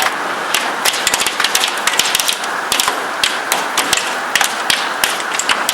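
Heavy hailstorm: a steady rush of falling hail with many sharp, irregular hailstone impacts.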